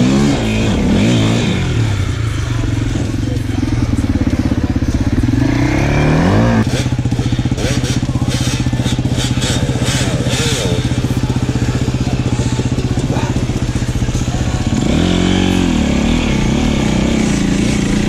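KTM enduro motorcycle engine pulling through snow. It revs up hard about six seconds in and holds a steady high pitch. Near the end it drops back and picks up again in a few rising surges.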